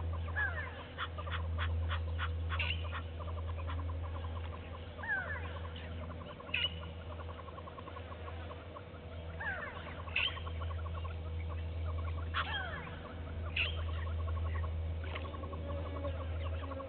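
Wild birds calling: short downward-sliding whistled calls every second or two, over a fast ticking trill and a steady low hum.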